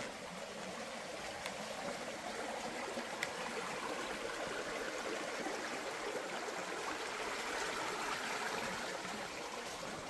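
A creek flowing: a steady rush of running water.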